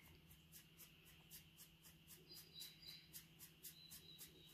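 Faint, rhythmic scratching of fingers through a borzoi's long fur, about four strokes a second, with a few faint high chirps in the background.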